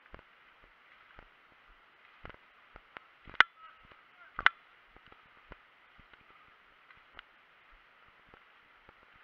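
Two sharp cracks about a second apart, over faint scattered ticks and clicks and a steady hiss.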